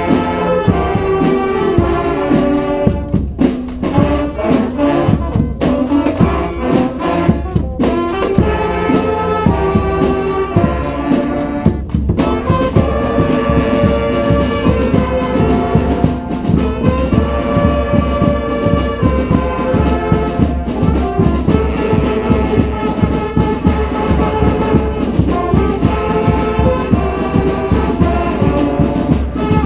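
Street brass band playing a cumbia tune, several brass horns over a steady beat. There are short breaks in the playing during the first twelve seconds, after which it runs as a fuller, unbroken section.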